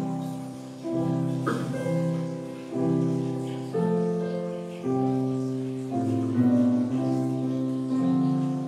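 Piano playing slow chords, a new chord struck about once a second, each fading away before the next.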